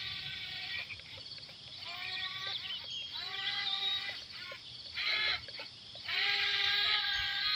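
Animal calls: several drawn-out, bleat-like cries with quicker chirps among them, overlapping and coming and going.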